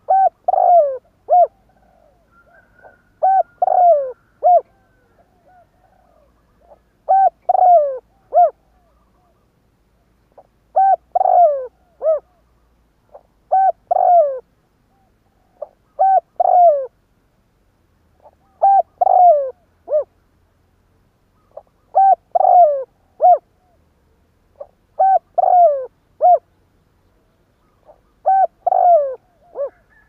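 Spotted dove cooing close to the microphone: phrases of three or four short coos, some sliding down in pitch, repeated about every three seconds.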